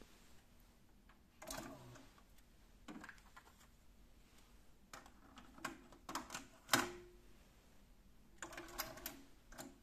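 Akai GX-7 cassette deck being loaded by hand: a series of faint mechanical clicks as the cassette door ejects open, a cassette is slid into the holder and the door is snapped shut, the loudest click near seven seconds in, then a short clatter of the play key engaging the tape transport in the last second or so.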